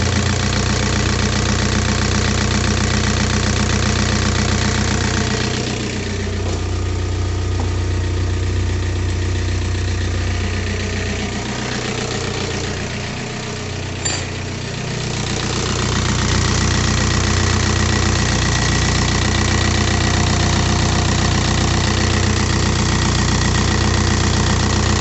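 Skoda 1.9 diesel engine idling steadily on its freshly rebuilt injection pump, a little quieter for several seconds in the middle, with one short click.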